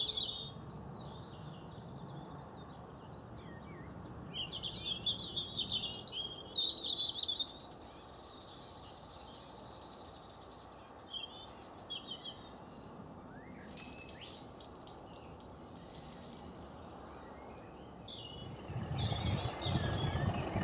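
Wild birds chirping and singing in several bursts over a quiet steady background. Near the end a low diesel engine rumble starts to rise as a locomotive approaches.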